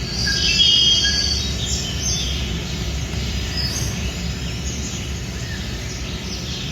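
Bird calls, short chirps and whistles, some sliding in pitch, thickest in the first couple of seconds, over a steady low rumble.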